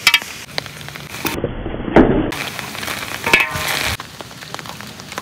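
A knife cutting and scraping through a raw cow leg, with sharp clicks and a heavy knock about two seconds in. Near the end this gives way to a quieter hiss from a wok of boiling water.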